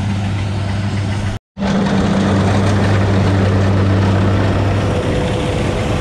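Rice combine harvester running steadily, its diesel engine giving a low, even hum over the broad rush of its cutting and threshing works. The sound drops out for a moment about a second and a half in.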